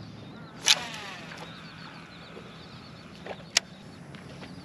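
A cast with a fishing rod: a quick swish about a second in, then line running off the reel with a whir that falls in pitch as the lure flies out, and a sharp click a few seconds later.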